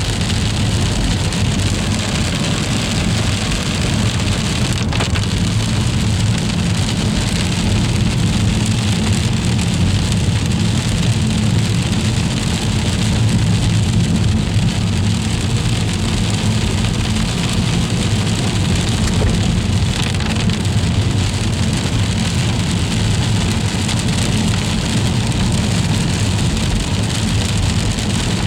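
Steady hiss of freezing rain falling during an ice storm, over a constant low rumble.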